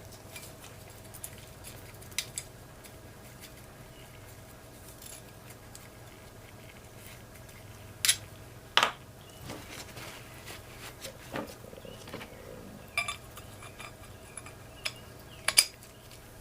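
Small steel ratchet parts and hand tools clinking and tapping as they are handled and set down, with scattered sharp clicks, the loudest about 8 and 15 seconds in.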